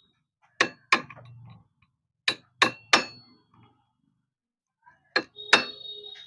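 Hammer strikes on metal, seven sharp blows in three groups, the last two leaving a short metallic ring: the tab of the lock washer being knocked over the motorcycle's clutch hub nut so the nut cannot work loose.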